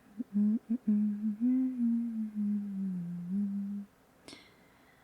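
A woman humming a tune to herself: a few quick notes, then longer held notes that sink a little in pitch before stopping. About a second later comes one sharp click with a brief high ringing tone after it.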